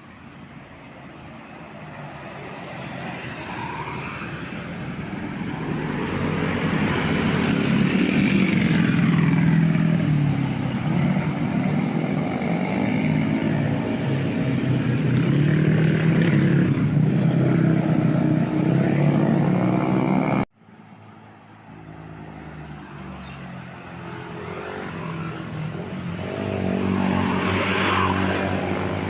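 Large tour bus passing close by on a road, its engine and tyre noise swelling up and holding loud for several seconds. The sound cuts off abruptly about two-thirds of the way through, then another vehicle approaches and passes, loudest near the end.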